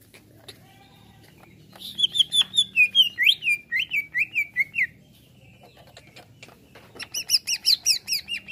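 Greater green leafbird (cucak ijo) singing: a rapid run of loud, sharp whistled notes, about five a second, from about two seconds in, then a second, higher run starting near the end.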